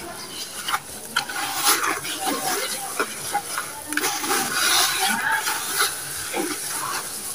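Hands squeezing and kneading wet, gritty sand-cement mix in a plastic bucket: a continuous crunchy, squelching crackle broken by small clicks and crumbles.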